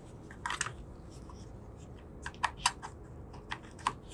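Light clicks and taps from a USB battery bank and its charging cable being handled while the bank is swapped: a short cluster about half a second in, then a quick run of sharp clicks in the second half.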